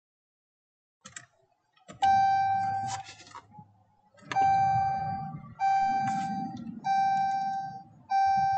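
A Dodge's dashboard warning chime dings five times about a second and a quarter apart, each ding fading out, as the ignition is cycled during a PCM/TCM tune write. A click comes just before the chimes.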